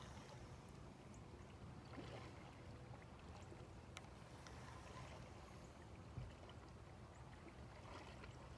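Near silence: faint water sounds of a kayak paddling past, with a single sharp tick about four seconds in and a low knock about two seconds later.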